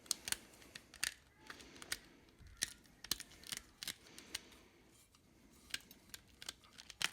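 Old, cracked speaker surround being pushed and torn loose from the cone of a 6.5-inch coaxial car speaker: a run of irregular small cracks and tearing snaps as the deteriorated material breaks away.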